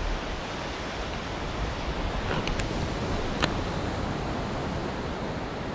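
Steady rushing noise of ocean surf on the beach, with a few faint clicks in the middle.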